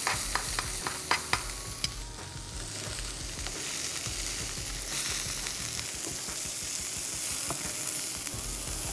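Chicken roulades sizzling as they sear in hot olive oil in a stainless steel frying pan. A few sharp metallic clicks in the first two seconds come from tongs turning the rolls against the pan.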